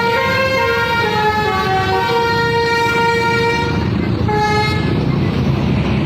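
Bus 'telolet' basuri air horn playing a tune of held notes that step between pitches, stopping a little before four seconds, with one more short note just after. Beneath it, the low rumble of the bus engine and traffic runs on.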